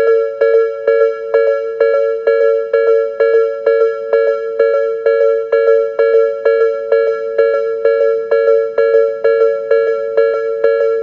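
Japanese railway level-crossing electronic warning bell in Tobu's "sound B" tone, sounding from the alarms on both sides: an even ding repeating about twice a second, the signal that the crossing is closing for an approaching train.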